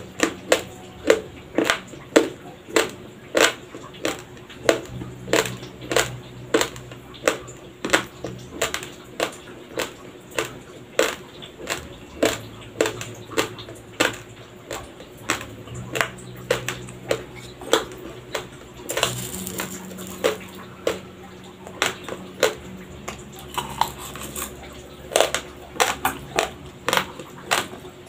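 Raw, uncooked Dinurado white rice being chewed close to the microphone: a steady run of sharp, crisp crunches, about two a second.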